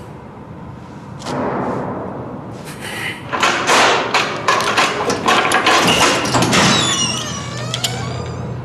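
Heavy metal prison cell door being unlocked and opened: a dense run of clanks and thuds, then a creaking, gliding squeal of the hinges near the end.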